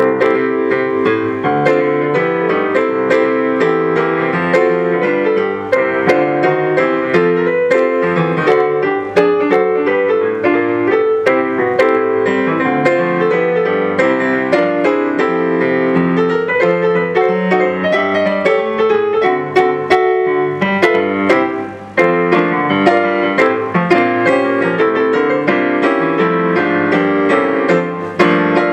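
Solo piano music played on a digital piano: a busy passage of many quick notes in both hands, which starts abruptly and breaks off for a moment about three-quarters of the way through before carrying on.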